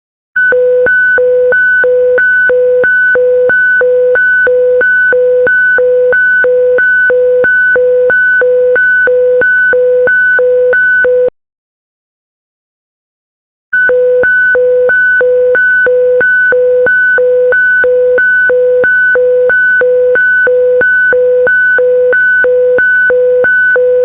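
Emergency alert system alarm: two tones sounding together in a rapid beep, about two pulses a second. It breaks off for a couple of seconds about halfway through, then starts again.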